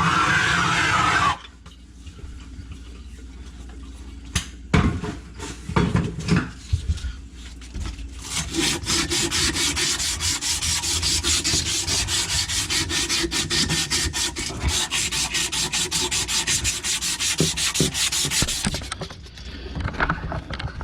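A loud steady noise cuts off just over a second in, then a few scattered clicks and knocks. After that comes a fast, even back-and-forth rasping of a hand tool working on drain pipe for about ten seconds.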